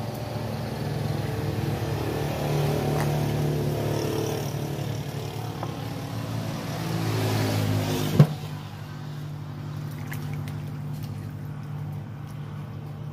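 A motor engine running steadily, louder through the first eight seconds and quieter after a single sharp click about eight seconds in.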